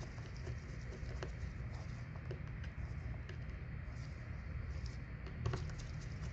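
Faint, scattered clicks and taps of a precision screwdriver and small phone parts being handled while screws are taken out of a smartphone, over a steady low rumble; a few clicks come close together about five and a half seconds in.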